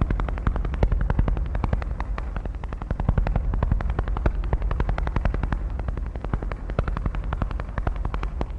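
Contemporary percussion music: a fast, even stream of sharp strokes, many a second, over a deep steady rumble.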